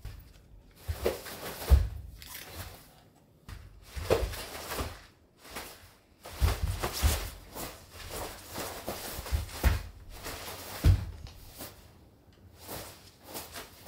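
A series of irregular dull thumps and knocks with rustling between them, like footsteps and people moving about in a small room.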